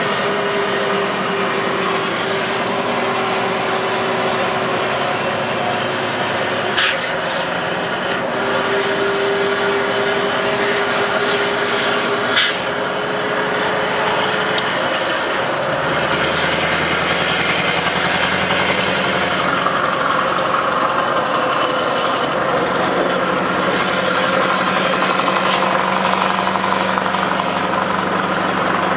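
Scania V8 truck engine with a straight-piped exhaust running under way, heard from inside the cab; its note shifts about halfway through. Two short sharp clicks stand out in the first half.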